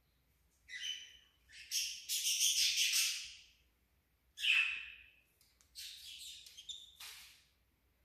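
Cockatiels calling in four rough, squawking bouts, the second and longest lasting about a second and a half, as two birds vie for the same scratching hand.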